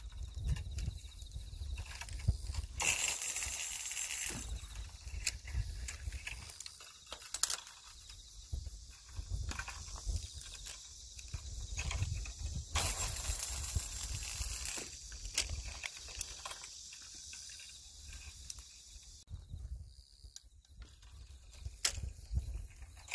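Outdoor waterside ambience: wind rumbling on the microphone, under a steady high hiss that swells twice, about three seconds in and again about thirteen seconds in.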